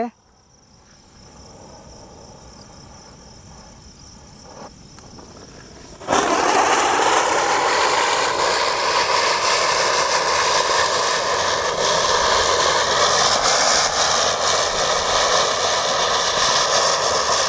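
Asoka Mori Chakkar ground-spinner firework (chakri): its lit fuse fizzes faintly for about six seconds, then the spinner catches with a sudden loud onset and spins, a steady rushing hiss with a few faint whistling tones in it.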